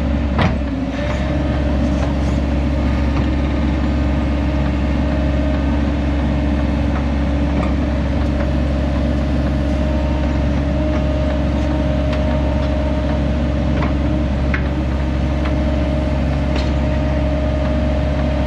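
Excavator's diesel engine running steadily, with a constant hum. A few faint clicks and scrapes come from the bucket as it is drawn across the dirt to grade the pit floor.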